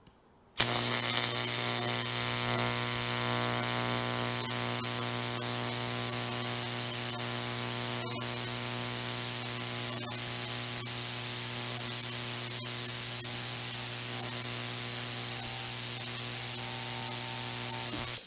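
TIG welding arc striking with a sharp crack about half a second in, then burning steadily as an even buzzing hiss with a mains-like hum underneath, until it cuts off abruptly just before the end.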